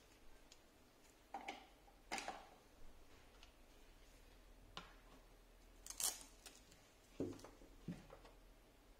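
Quiet handling noises: a handful of scattered light clicks and soft knocks as a laptop charger cable and its plug are picked up and moved about. The sharpest click comes about six seconds in.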